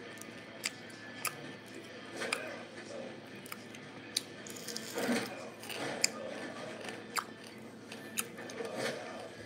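A person eating by hand, chewing with mouth noises, with sharp clicks spaced about a second apart and a few short rustling bursts.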